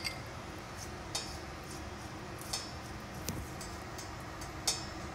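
About five soft ticks and light scrapes as a basting brush is dipped in a small bowl of oil and dabbed over grilled chicken in an air fryer's non-stick pan, over a steady low hum.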